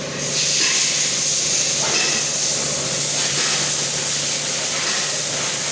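A loud steady hiss that comes up just after the start and holds evenly, with a low steady hum beneath it.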